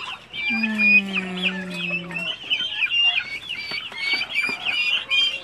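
A pen of young chickens and turkeys peeping, many short high chirps one after another, with a longer, lower, slightly falling call of under two seconds near the start.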